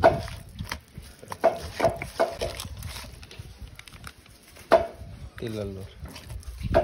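Hand kneading chicken pieces in a wet spice marinade in a stainless steel bowl: squelching and repeated knocks and scrapes of the hand and meat against the bowl's side. A short voice cuts in about five and a half seconds in.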